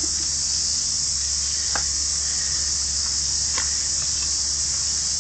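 Steady high-pitched chorus of insects buzzing. Two faint short ticks come about two and three and a half seconds in.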